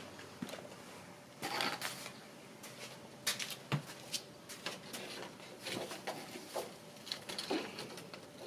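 Black plastic lattice panel being handled and set into place against a wooden porch frame: irregular light clacks, knocks and short scrapes of plastic on wood.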